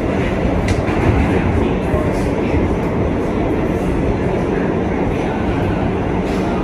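Kawasaki R211A subway car running at speed through a tunnel, heard from inside the car: a loud, steady rumble of wheels on rail with a few faint clicks.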